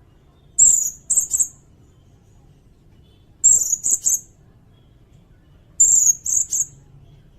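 Serindit (blue-crowned hanging parrot) giving high, shrill calls: three phrases about two and a half seconds apart, each a longer note followed by two or three short ones. This is a recorded call used as a lure for trapping and as song material for training cage birds.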